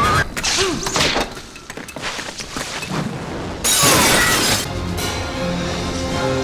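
Action-film soundtrack: orchestral score under sound effects, with a loud crash of shattering debris about four seconds in, followed by sustained orchestral chords.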